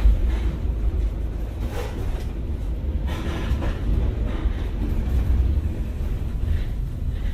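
Steady deep rumble from an added sound-effect track, with faint hissing swells coming and going over it.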